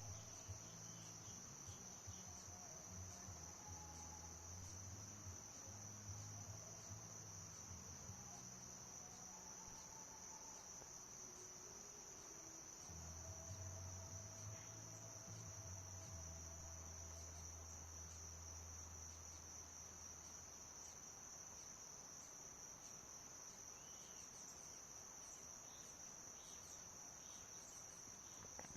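Faint, steady high-pitched insect chorus, an unbroken chirring. A low hum comes in for the first several seconds and again through the middle.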